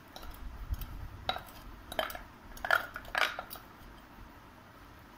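Kitchen utensils clinking against dishes: four short, sharp clinks with a brief ring, the loudest close to three seconds in.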